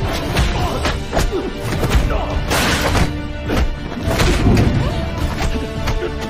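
Film fight-scene soundtrack: dramatic music under a rapid series of punch, block and kick impact sound effects, with a heavier crash about two and a half seconds in.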